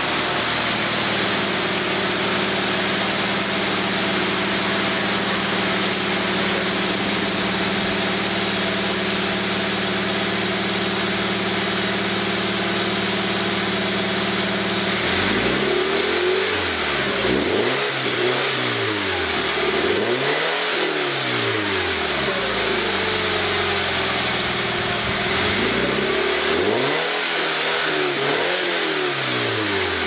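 Toyota 86 2.0-litre flat-four engine breathing through a Zeta Performance aftermarket catback exhaust. It idles steadily, then from about halfway it is revved repeatedly, each rev rising and falling back in pitch.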